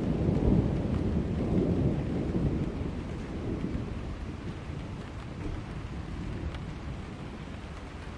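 A roll of thunder rumbling low and slowly fading away over several seconds, over steady rain.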